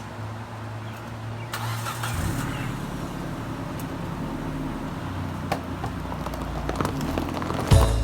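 Car engine running, then about two seconds in a low rumble swells as the car pulls away, growing gradually louder as it gathers speed. Loud music with a beat starts near the end.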